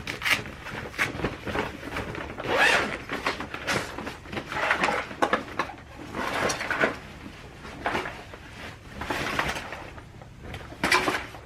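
Rummaging through a bag of tangled wires and clutter: an irregular run of rustling and clattering handling noises.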